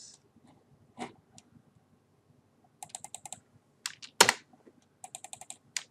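Computer keyboard keystrokes: a single click, then two quick runs of evenly spaced key presses, about ten a second, as text is deleted from form fields. A louder single click comes about four seconds in.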